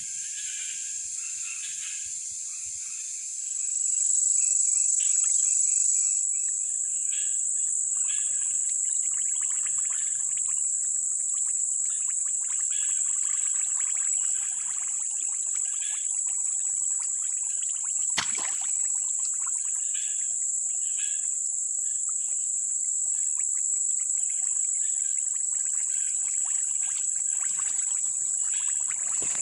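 Night insect chorus in a tropical swamp: a steady, high-pitched drone that grows louder about four seconds in, with scattered short chirps beneath it and one sharp click about two-thirds of the way through.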